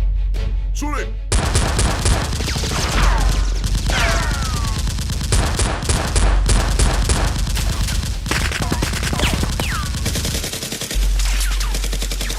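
Rapid bursts of automatic gunfire sound effects, starting about a second in, with a few falling whistling sweeps among the shots, over background music with a heavy bass.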